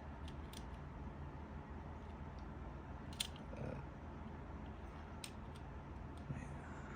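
A few faint, sharp clicks as the small parts of a Hot Wheels die-cast car and its replacement wheels are handled and fitted, with one louder click about three seconds in.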